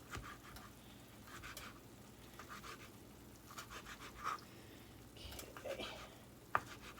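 Knife cutting cooked chicken into strips on a plastic cutting board: faint, scattered scraping strokes, with one sharp tap near the end.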